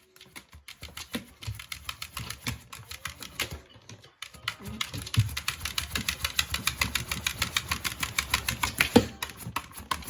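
A beagle's claws scraping and clicking fast against the floor at the base of a refrigerator, about five or six strokes a second, as it digs at a snack stuck underneath. There is a brief pause about four seconds in.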